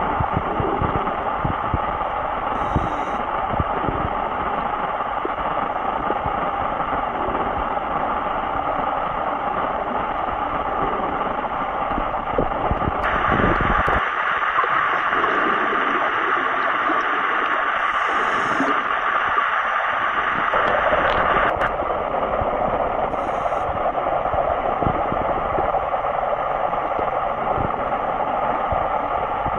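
Steady, loud rushing hiss of an underwater recording through the camera housing, brighter for several seconds in the middle, with scattered low knocks.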